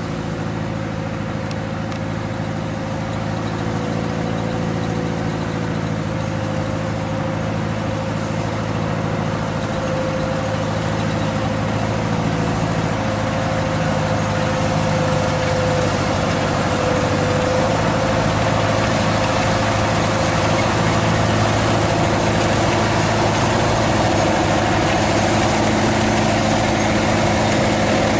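Kubota DC-105X rice combine harvester's diesel engine running steadily under harvesting load, with a thin steady whine from the threshing machinery. It grows slightly louder and hissier over the stretch.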